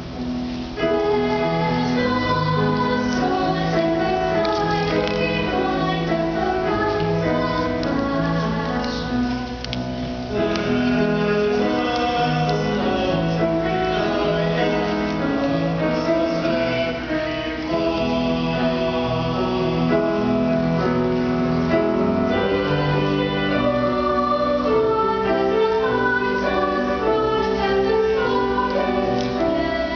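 Mixed choir of young singers performing a song, sustained sung notes in several parts, getting louder about a second in.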